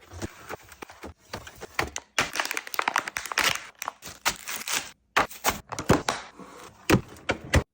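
Plastic containers and food packaging handled and set down while restocking a fridge: a quick run of clicks and knocks, with stretches of crinkling and rustling.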